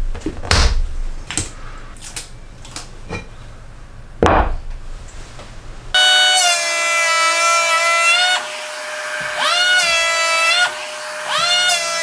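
Small wooden blocks knocked down onto a wooden bench top, several sharp knocks. Then, about halfway through, a Makita KP180DZ cordless electric hand planer starts running with a steady high whine. Its pitch drops away and climbs back a few times as it cuts a small block.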